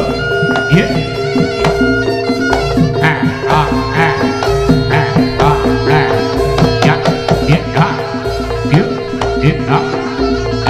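Javanese gamelan music accompanying a Senterewe jaranan dance: quick, dense drumming over steady ringing gong-like tones.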